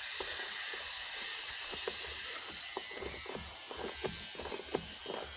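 Steady hiss with a few faint, light clicks of a Torx bit working small self-tapping screws out of a plastic air filter housing.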